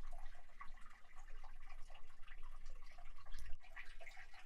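Water dripping into a pool of standing water, many small irregular plinks, echoing inside a hollowed-out fallen giant sequoia log.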